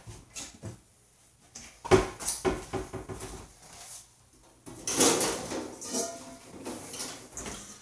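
A kitchen cabinet door opening and stainless steel mixing bowls clattering as one is taken out: a sharp knock about two seconds in, a run of rattling, then a longer clatter near the end.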